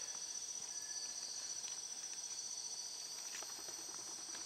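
Night insects of the rainforest calling in a steady, high-pitched chorus, with a few faint ticks.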